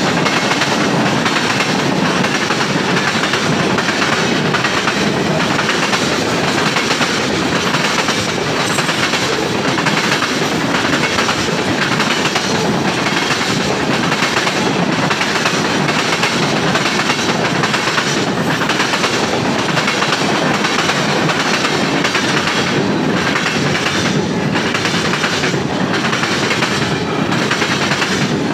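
Freight train of tank cars, covered hoppers and flatcars rolling past close by: a steady loud rumble with the clickety-clack of wheels over rail joints.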